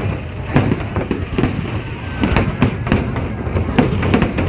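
Fireworks display: a rapid, irregular run of bangs and crackles over a continuous low rumble.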